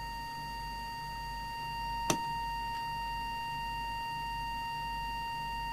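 Steady test tone of about 1 kHz, the audio tone used for setting a CB transmitter's FM deviation, sounding over a low electrical hum from the bench test gear. A single sharp click about two seconds in.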